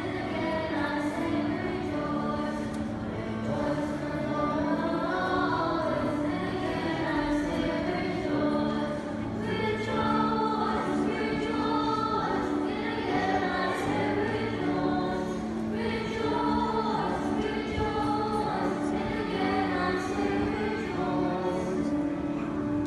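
Mixed choir of men and women singing a church piece in parts, with long held low notes under a moving melody.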